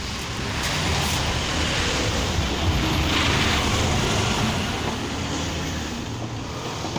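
Portable air conditioner running on test after repair: a steady hum and rush of air from its compressor and fans.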